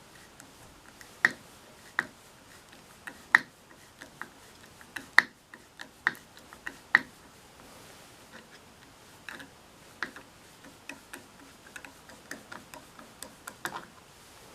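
Hand screwdriver turning a screw driven with no pilot hole: irregular sharp clicks and creaks as it turns. The loudest come about every second in the first seven seconds, with smaller, closer-spaced ones later.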